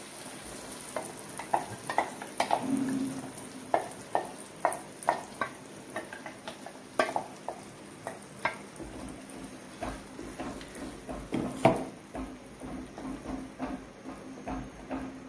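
A spatula scraping and knocking against a clay pot in irregular strokes, stirring ground horsegram paste into a sizzling onion-and-tomato base.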